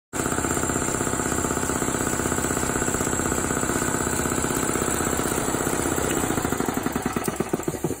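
Industrial piston air compressor running, a loud rapid pulsing of about ten beats a second that slows in the last two seconds as the pump winds down.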